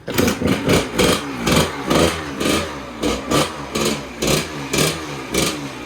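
Kawasaki KX100's two-stroke single-cylinder dirt bike engine running and revving up and down in quick repeated blips, about two a second.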